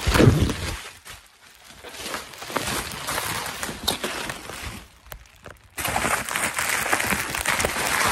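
Handling and movement noise from a phone being carried, then from about six seconds in a dense, steady crinkling of bubble wrap being pulled open by hand.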